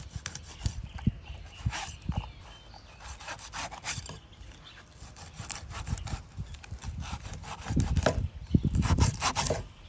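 Cleaver blade scraping and slicing flesh off a large fish's rib bones on a wooden chopping block, in irregular rasping strokes. The strokes get louder and heavier near the end.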